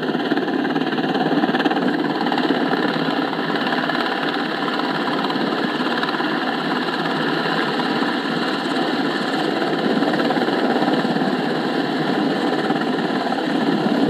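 Small RC helicopter's electric motor and rotors buzzing steadily as it hovers and settles onto the landing pad.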